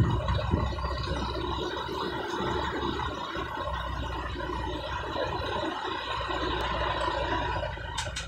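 Diesel engine of a container truck running at low speed as the rig rolls slowly, heard from the cab window, with a steady hum and rumble. Two short clicks come near the end.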